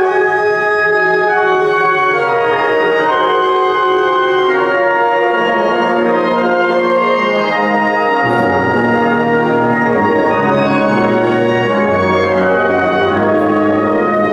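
Symphonic wind band playing a Spanish Holy Week processional march: a loud brass-led chord enters suddenly and is held, with slow sustained harmonies, and the low brass comes in more strongly about halfway through.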